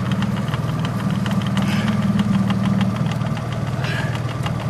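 Boat engine idling steadily, with a rapid even pulse.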